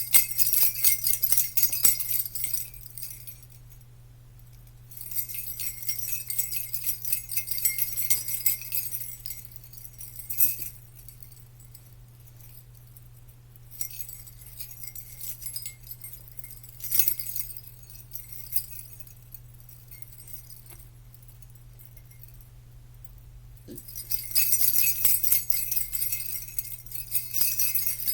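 Jingle bells shaken in spells of a few seconds, with quiet pauses between, over a faint low steady hum.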